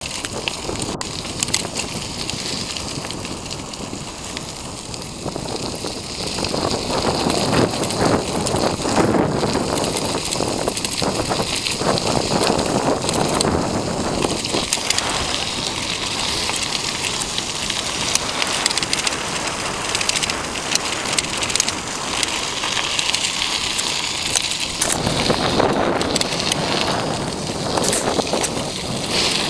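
Wind rushing over the microphone and tyre noise from a bicycle moving fast along the road, with many small rattles and clicks from the bike. It gets louder after about six seconds.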